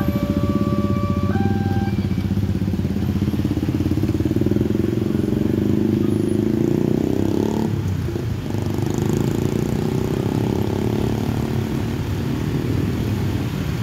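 Many small motorcycle and scooter engines running and revving together as a crowd of riders pulls away over a level crossing. The crossing's two-tone electronic warning signal alternates between two pitches for the first second or so, then stops.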